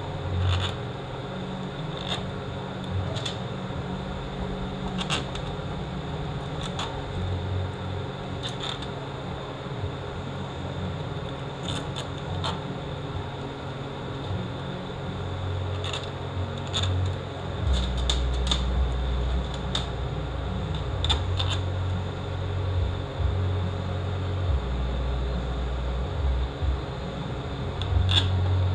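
Scattered metallic clicks and taps of bolts and hand tools as bolts are set in and tightened on an RE4R01A automatic transmission. A steady low hum runs underneath and grows louder a little past the middle.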